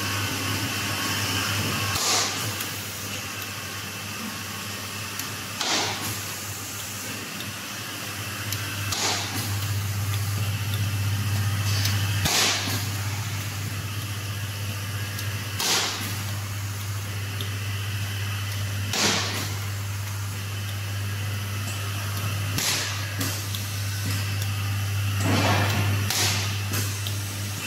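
Capacitor-discharge CNC stud welder with five weld guns firing studs into sheet metal: a sharp crack about every three to four seconds, around eight or nine in all, over a steady low machine hum.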